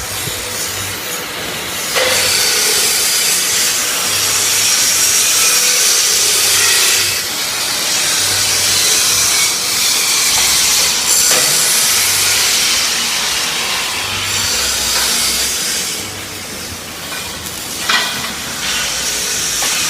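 MIG welding arc hissing steadily as a bead is laid, with one sharp snap near the end.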